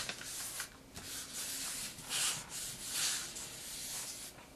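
A sheet of origami paper rubbing and sliding under the fingers as it is folded in half into a triangle and its edges lined up: several soft swishes of paper.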